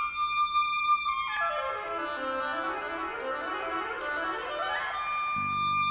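Oboe playing a short intro phrase: a high held note, a fast run sweeping down and back up, and the high note held again. Lower accompanying notes come in near the end.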